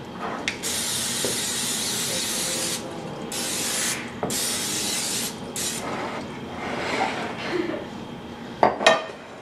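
Aerosol cooking spray hissing in four bursts, the first about two seconds long, greasing a baking dish. Near the end, two sharp clicks.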